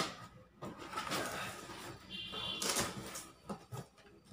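Cardboard box being opened by hand: a sharp knock as the lid comes up, then cardboard flaps and inner packing scraping and rustling, with a brief squeaky scrape about two seconds in.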